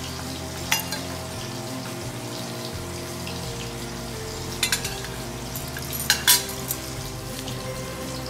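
Soft instrumental background music over a light rattling hiss of dry mustard and cumin seeds poured from a steel bowl into a grinder jar, with a sharp clink about a second in and a few more clinks past the middle.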